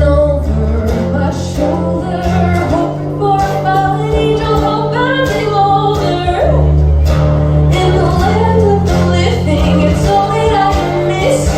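Band playing a song live: guitars over a steady bass line, with a voice singing over them.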